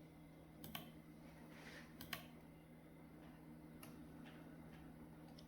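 Near silence: room tone with a steady low hum and a few faint, sharp clicks scattered through it, two of them close together about two seconds in.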